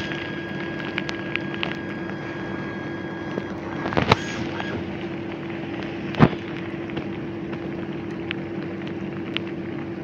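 A steady low hum over a constant hiss, with a few short sharp knocks, two of them louder in the middle.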